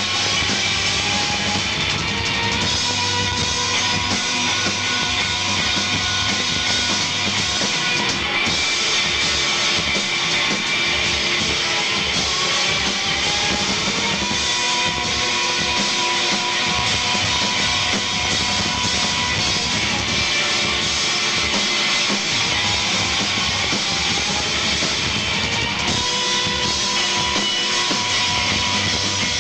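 Rock band playing live: electric guitars, bass and drum kit, loud and steady, with the bass dropping out briefly twice.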